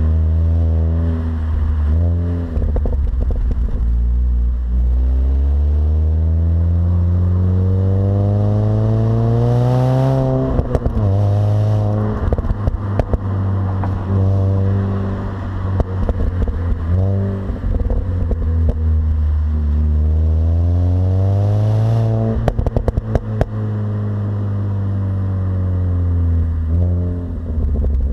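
Mini Cooper S R53's supercharged four-cylinder engine on its stock exhaust, pulling hard through the gears. The note climbs steadily for several seconds, drops sharply at an upshift about ten seconds in, then climbs again to a second shift a little past twenty seconds before falling away as the car eases off. Brief crackling comes around each shift.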